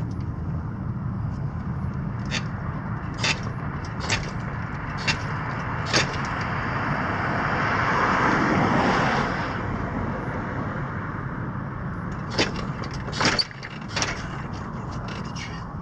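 Sharp knocks and clicks from a motorcycle trailer and its wheel chock as a heavy electric motorcycle is rocked and pulled against the chock. A car passes on the road about halfway through, rising and fading over a few seconds.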